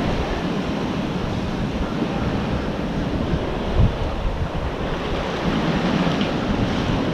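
Sea waves surging and washing around the pier pilings below, a steady rush of surf, with wind buffeting the microphone. One brief bump a little under four seconds in.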